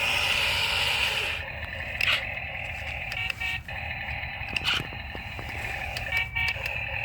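Toy RC excavator's small electric motors whirring steadily through their gearboxes, with a few sharp clicks of plastic parts.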